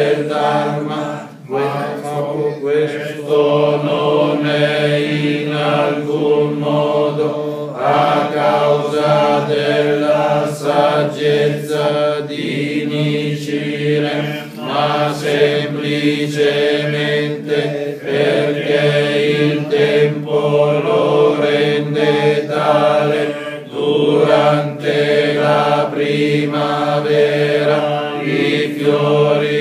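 A group of voices chanting in unison on a steady, unchanging pitch: a Nichiren Buddhist recitation. It breaks briefly for breath about a second and a half in and again about four-fifths of the way through.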